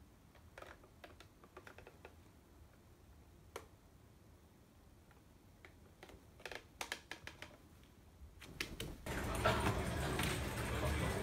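A few soft scattered clicks and taps. About nine seconds in, the busy room noise of a PC café comes in, full of computer keyboards clicking.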